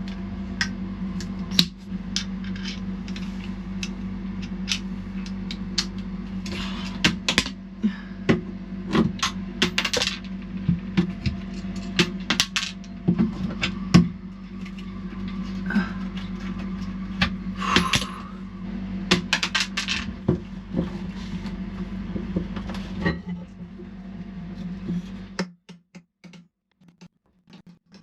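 Hand tools knocking, clicking and scraping as wooden blocks are pried out of an old fiberglass repair, with many sharp clicks spread throughout. Under them runs a steady low hum that cuts off near the end.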